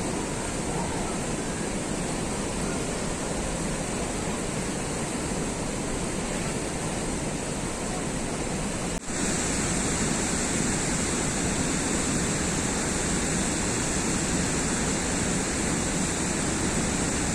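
Steady rush of water pouring down a waterfall. It cuts out for an instant about nine seconds in and then comes back slightly louder and brighter.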